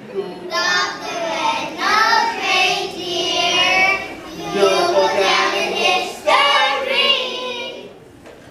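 Group of children singing a holiday song; the phrase ends and the singing stops near the end.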